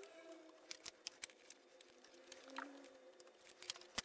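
Faint scattered clicks and taps of a wooden board and a pencil being handled on a miter saw table, over a faint steady hum. The sharpest click comes near the end.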